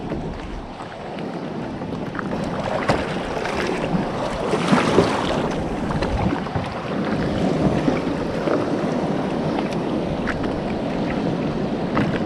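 Small waves lapping and splashing against a kayak's hull, with wind buffeting the microphone; the sound swells about four to five seconds in, and a few sharp splashes or knocks stand out.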